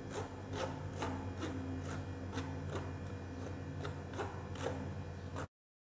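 Metal spoon scraping and stirring flour and cocoa powder through a steel mesh sieve, in an even rhythm of about two to three strokes a second over a steady low hum. The sound cuts off suddenly near the end.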